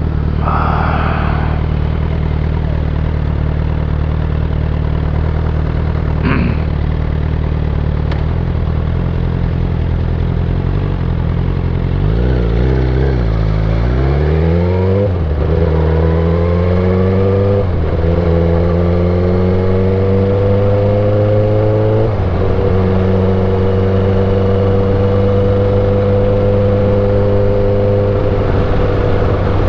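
Suzuki GSX-R1000 K8 inline-four engine running steadily, then revving up with rising pitch about twelve seconds in. Two gear changes drop the pitch before it settles to a steady cruise.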